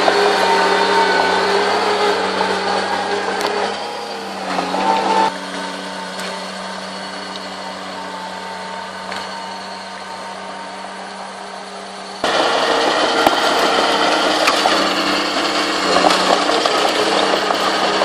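Small crawler bulldozer's diesel engine running steadily, with its steel tracks rattling as it pushes soil. The engine note shifts briefly about four and a half seconds in. The sound is quieter for several seconds after that, then loud again from about twelve seconds in.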